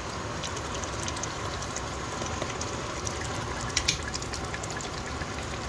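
Chicken pieces frying in oily onion masala in an aluminium pressure-cooker pot over a gas flame: a steady sizzling hiss, with a few light clicks about four seconds in.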